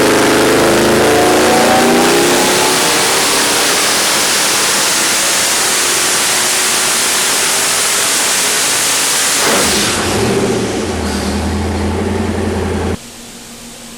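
Twin-turbo Ford 428 Windsor V8 on an engine dyno, making a wide-open-throttle pull under boost. The engine note climbs in pitch over the first few seconds, then becomes a loud, even rush of exhaust and turbo. About ten seconds in it falls off to a lower, steady note, and the sound cuts off abruptly near the end.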